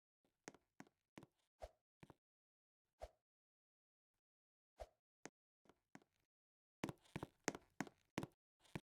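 Irregular short taps or clicks with dead silence between them: a few scattered ones, then a quick cluster near the end.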